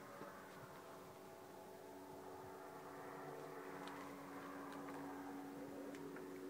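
Faint steady mechanical hum holding a few even tones, with a few light clicks and handling rustles.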